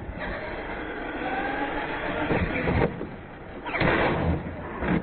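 Radio-controlled monster truck's motor and drivetrain whining, the pitch rising and falling with the throttle. Knocks follow about two and a half seconds in, then a louder clattering burst near the four-second mark as the truck lands and bangs over the ramps.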